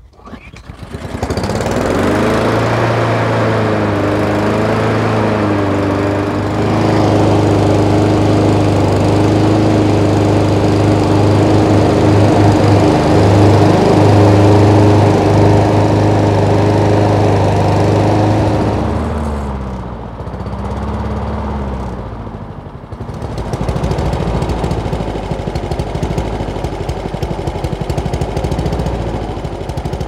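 Honda GSV160 single-cylinder four-stroke engine on a Honda HRC216 mower catching on the pull and running at high speed, its pitch wavering for a few seconds before it settles; it now runs after a no-start, its carburetor freshly cleaned. About twenty seconds in it drops to a slower, rougher idle of about 1,550 rpm.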